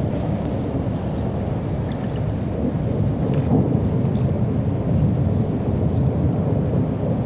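Steady low rumbling of wind buffeting the microphone, with no clear tone or rhythm in it.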